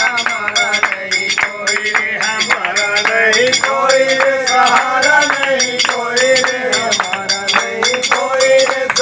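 Train passengers singing a Hindu devotional bhajan (kirtan) in male voices, kept in time by a steady beat of hand-clapping at about three to four claps a second.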